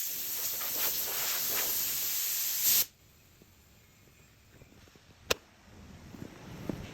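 A loud, steady spraying hiss that cuts off suddenly about three seconds in, leaving near quiet broken by one sharp click.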